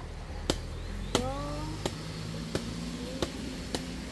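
Sharp clicks repeating about every two-thirds of a second over a low steady hum, with a short rising call about a second in.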